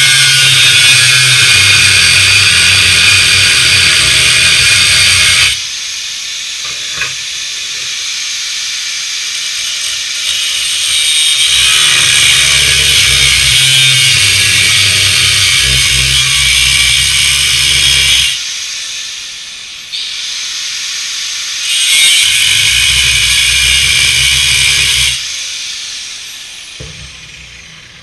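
Angle grinder working steel tube in three long runs, each with a steady high-pitched hiss and motor hum, the disc winding down with a falling whine after the second and third runs.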